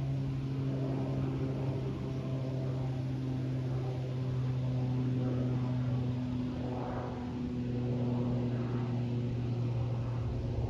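Small propeller aeroplane flying overhead: a steady engine-and-propeller drone whose pitch sinks slightly as it passes.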